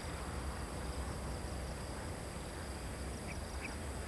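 Outdoor evening ambience: a steady low rumble under a continuous high-pitched insect drone, with two short chirps a little after three seconds in.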